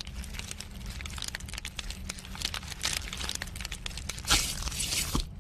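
Giant insect creature sound effect: a dense, rapid clicking and crackling over a steady low hum, with a loud hissing rush just after four seconds in.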